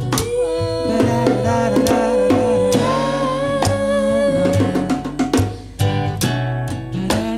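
Live acoustic band playing: two women singing, holding one long note through the first half, over acoustic guitar and hand-played bongo hits.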